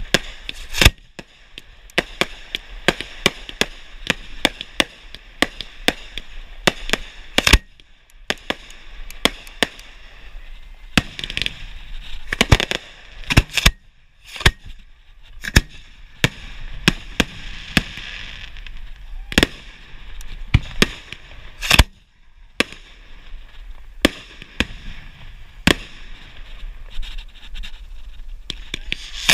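Display fireworks shells firing from mortar racks close by: a rapid, irregular series of sharp bangs, several a second, with a few brief lulls. A steady hiss runs beneath them.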